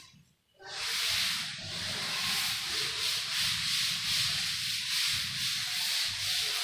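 A duster wiping chalk off a chalkboard in quick back-and-forth strokes, making a steady scratchy rubbing.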